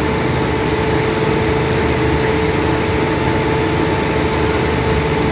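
Diesel train standing at the platform with its engine idling: a steady, unchanging hum.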